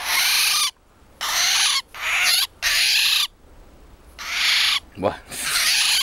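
Eurasian golden oriole held in the hand, giving harsh, rasping screeches about six times in quick succession, each under a second long. These are the distress calls of a handled bird.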